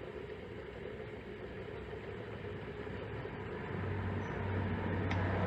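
Water and vinegar being poured from a bottle into an AC condensate drain line, a steady rushing gurgle that grows louder, joined by a low steady hum about four seconds in.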